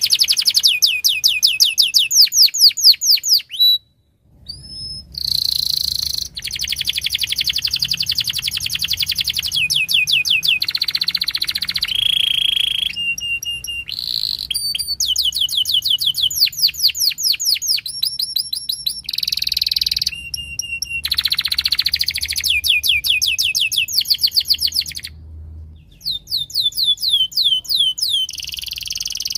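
Canary singing a long, varied song of fast trills and rapidly repeated rolling notes, broken by short pauses about four seconds in and near the end.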